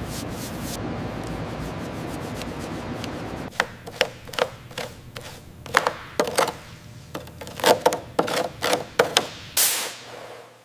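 A hand tool works on corroded metal. A steady rushing noise runs for a few seconds, then a run of short, sharp scraping strokes follows at an uneven pace of about two a second.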